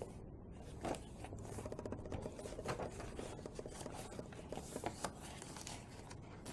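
Pages of a handmade paper journal being turned and smoothed down by hand: faint paper rustling and rubbing, with a few soft ticks.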